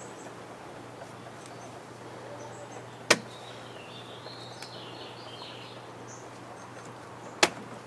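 A paint-dipped, prong-covered ball smacked down onto poster board twice, two sharp splats about four seconds apart. Birds chirp faintly in the background.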